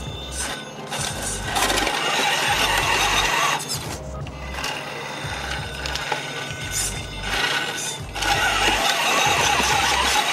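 Background music with a steady bass line, over the whirring of an RC rock crawler's electric motor and drivetrain gears.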